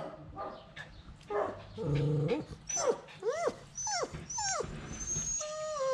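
A dog whining while shut outside behind a screen door, wanting to be let in: a short lower note about two seconds in, then a few high whines that rise and fall, and a longer wavering whine near the end.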